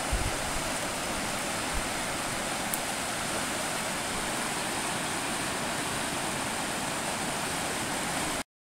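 River water rushing over a rocky riffle: a steady hiss of flowing water with a couple of faint low knocks right at the start. It cuts off abruptly near the end.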